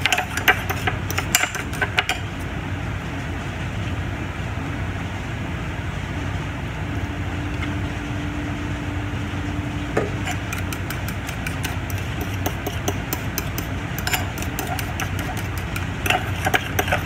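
Metal spoon clinking rapidly against a ceramic bowl as egg yolks are beaten, for the first two seconds and again from about ten seconds on, over a steady low hum.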